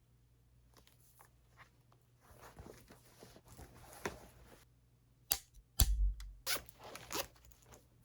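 Soft rustling of objects being handled, then several sharp clicks and knocks a little past halfway, the loudest a dull thud.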